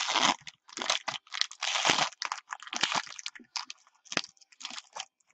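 Foil trading-card pack torn open and crinkled by hand: a run of irregular crackling rips, loudest at the start and about two seconds in, dying away near the end.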